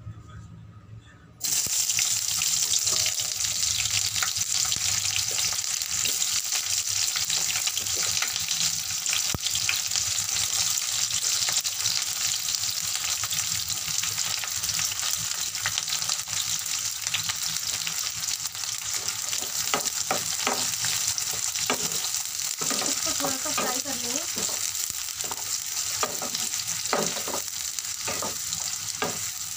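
Sliced onions sizzling in hot oil in a kadhai; the sizzle starts suddenly about a second and a half in, as the onions hit the oil. In the last third a wooden spatula stirs them, with repeated scrapes and knocks against the pan.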